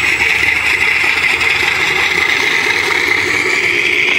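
Simulated T-28 Trojan piston-engine sound played through the onboard speakers of an RC model plane, running steadily and loud, its pitch rising a little near the end.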